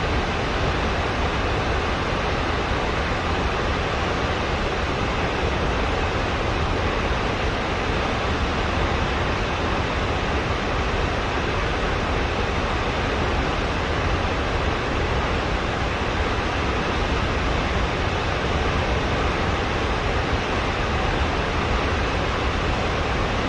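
Steady, unbroken rushing of moving water, an even roar with a strong low end and no separate splashes or changes.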